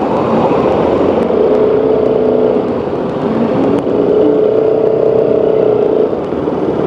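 Motorcycle engine running while being ridden, heard from the rider's seat over a steady rush of noise. Its note holds level twice, for a second or two each time.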